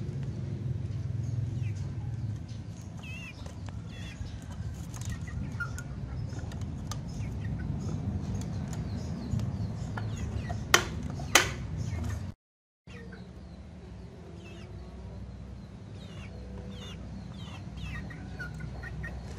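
Chicken clucking softly in short calls over a steady low background rumble. Near the middle come two sharp clicks about half a second apart, the loudest sounds here, from the PVC-pipe trap being handled.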